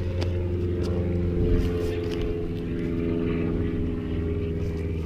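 An engine running steadily, a low even hum, with a few faint clicks over it.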